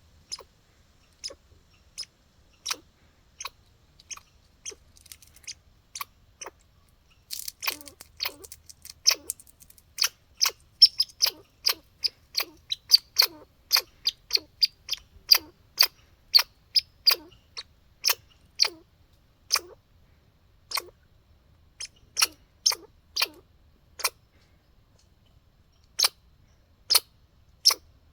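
A squirrel chewing, heard as a string of sharp, irregular clicks like hiccups. They come sparsely at first, quicken to about two or three a second from around eight seconds in, then space out again.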